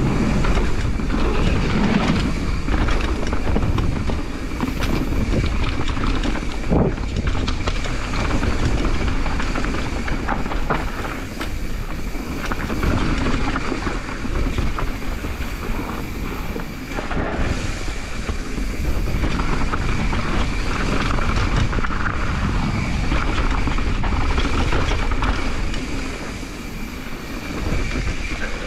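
Devinci Troy mountain bike ridden fast down a rough downhill trail: a continuous clattering rattle over the rough ground, with a sharper knock about seven seconds in.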